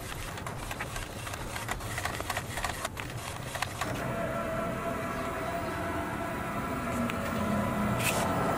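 FreeJet direct-to-garment printer running in fast motion: a dense run of quick clicks and rattles from the moving print-head carriage, settling about halfway through into a steadier mechanical hum with a few held tones.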